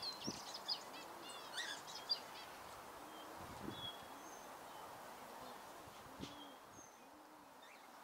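Small birds chirping and twittering, busiest in the first two and a half seconds, with a few single high whistled notes later. Under them, soft low calls repeat about every half second.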